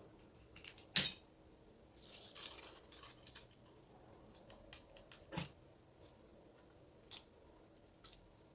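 Small tools and parts being handled at a workbench: a few sharp clicks and taps, the loudest about a second in, with a short scratchy rustle between them.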